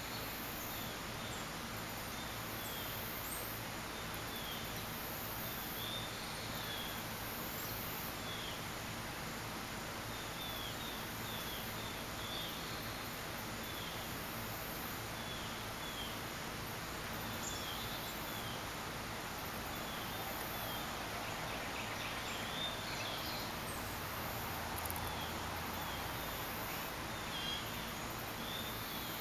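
Outdoor garden ambience: small birds chirping in short, repeated calls, and a very high insect buzz that swells and fades every second or two, over a faint steady low hum.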